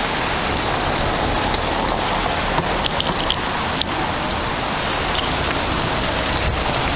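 Water from a stone piazza fountain splashing steadily into its basin.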